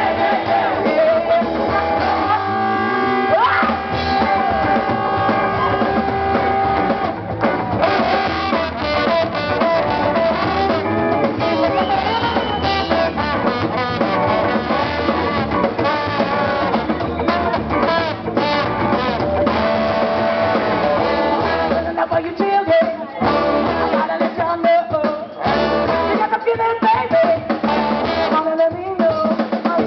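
A live band plays loud music on electric guitar, bass guitar and drum kit, with a horn section of trombone and saxophone.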